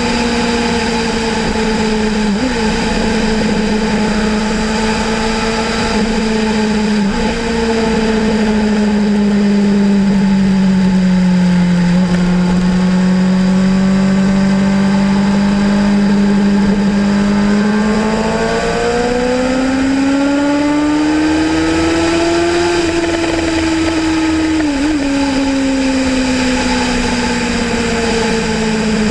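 Kawasaki Ninja ZX-6R's inline-four engine running under way, a steady high engine note over wind and road noise. The note holds and sags a little at first. About two-thirds of the way through it jumps up and climbs for a few seconds, then falls back as the revs ease.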